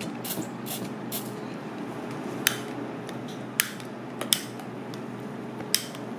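Sharp crackles and ticks as turban shells heat over a flame on a bed of salt, a few faint ones early and four clearer ones spread over the second half, over a steady low hum.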